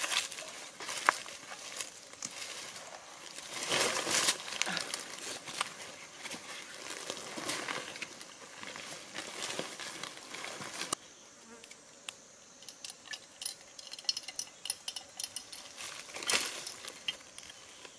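Dry leaves and undergrowth crackling and a backpack being handled as a person sits down on the forest floor, over insects buzzing and chirping. The handling noise thins out after about eleven seconds, leaving faint rapid high chirps, and a burst of rustling comes back near the end.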